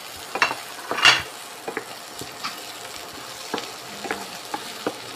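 Sliced vegetables sizzling in oil and butter in a frying pan while a wooden spatula stirs them. Short scrapes and knocks of the spatula over a steady frying hiss, the loudest scrape about a second in.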